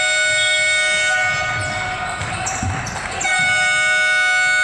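Basketball gym's scoreboard horn sounding in two long, steady blasts, breaking off for under a second between them.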